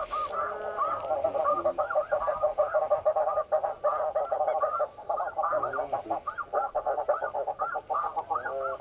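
Dense chorus of snow goose calls: many short honks overlapping without a pause.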